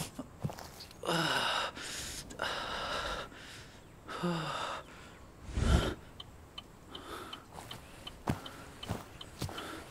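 A man's ragged, gasping breaths, several in a row, some with a voiced edge that falls in pitch. A low thud a little past halfway is the loudest sound.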